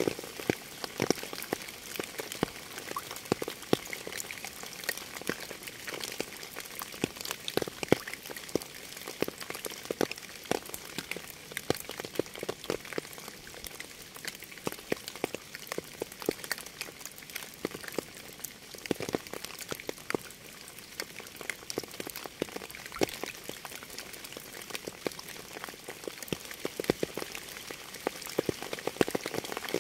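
Steady rain falling, with many separate drops striking close by at an uneven rate.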